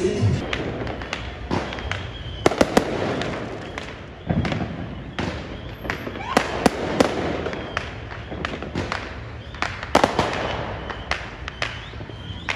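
Fireworks and firecrackers going off in irregular sharp bangs and pops, several in quick runs of two or three.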